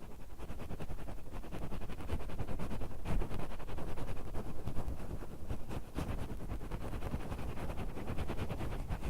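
Ear-cleaning ASMR: an ear pick scratching and rubbing close against the recorder's microphones, a dense run of fine scratchy clicks over low rumbling handling noise. It gets louder about two seconds in.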